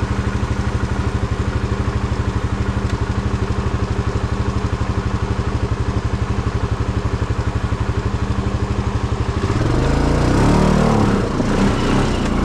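Tractor engine idling with an even, rapid chugging, then revving up and down and getting louder from about nine and a half seconds in.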